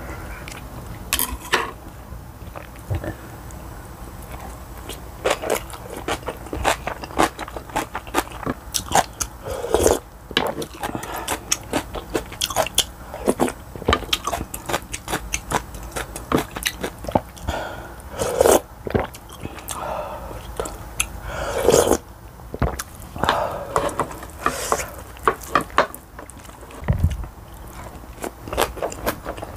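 A person chewing and biting into rice bibimbap and kimchi, picked up close by a clip-on microphone. Irregular short clicks of chopsticks and a spoon against the bowls come throughout.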